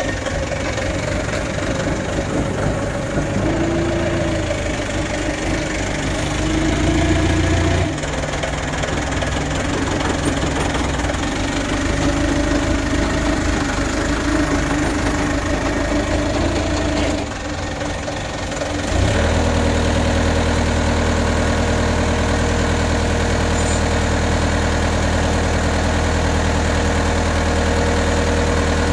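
Forklift engine running as it lifts and carries a load, revving up for a couple of seconds about six seconds in. It dips briefly past the middle, then runs louder and steady.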